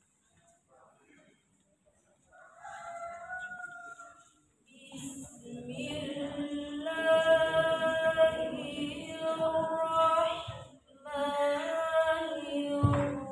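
A girl's voice reciting the Quran from memory in a slow, melodic chant. Long held, wavering notes come in three phrases with short breaks, starting a couple of seconds in. A low knock sounds near the end.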